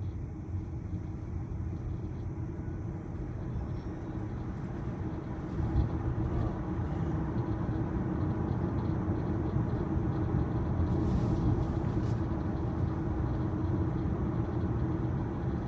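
Road and tyre noise inside the cabin of a moving 2023 Tesla Model Y: a steady low rumble with a faint steady hum. It grows a little louder about six seconds in.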